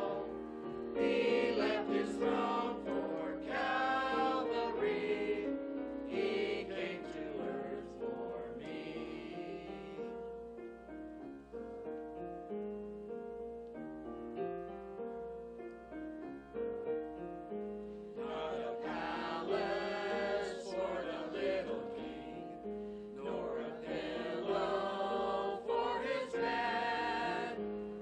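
Small mixed church choir singing a Christmas cantata song in parts over instrumental accompaniment. The voices drop back for a quieter stretch in the middle, then full singing returns.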